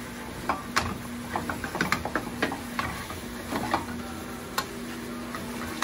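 Honey and citrus sauce reducing in a pan on a gas burner, its bubbles popping in irregular sharp ticks over a steady low hum.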